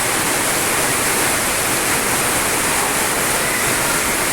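Heavy rain pouring down: a loud, steady rush of water.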